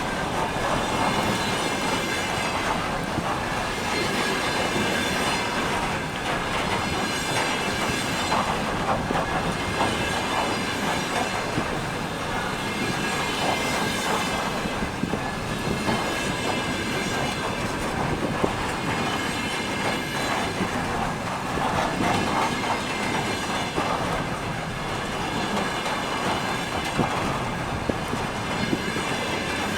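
A train hauled by a 2M62 diesel locomotive rolling steadily past, its wheels clattering over the rail joints, with a thin steady high-pitched ring over the rumble.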